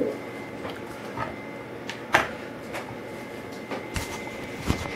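A handful of light clicks and knocks from handling, the clearest about two seconds in, over a faint steady hum with a thin high tone.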